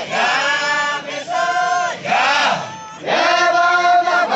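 A group of men chanting a folk dance song in unison, in short phrases of about a second, each rising and then falling in pitch.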